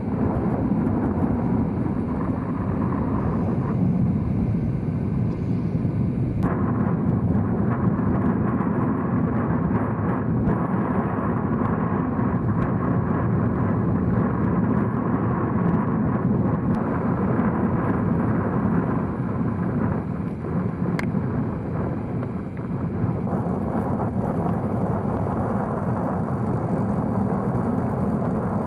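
Strong wind buffeting the microphone in a steady, loud rumble.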